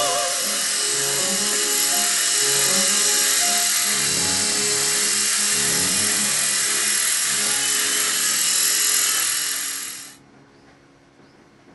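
Mini radio-controlled helicopter's electric motor and rotors whirring in flight, mixed with background music. Both stop abruptly about ten seconds in, leaving only a faint hiss.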